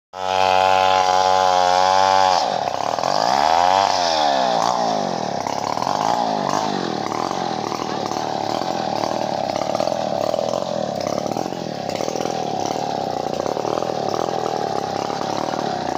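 Two-stroke chainsaw at full throttle for about two seconds, then the revs drop suddenly. It revs up and down a few times, then settles into a steadier, lower running for the rest.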